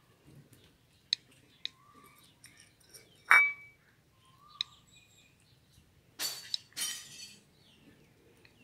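A single sharp clink with a brief ringing tone about three seconds in, among a few lighter clicks, with soft short chirps now and then and two brief harsh bursts about six seconds in.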